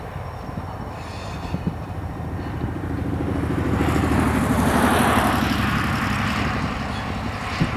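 Diesel freight locomotive passing close by, its engine and wheels on the rail growing louder to a peak about five seconds in, then fading. A few sharp knocks from the wheels are heard.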